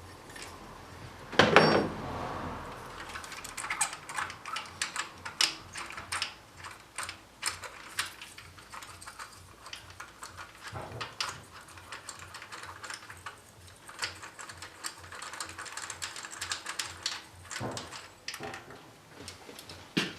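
Hand tools working a spark plug out of the engine: a stream of small metallic clicks and clinks from a ratchet and socket, with a louder clank about a second and a half in.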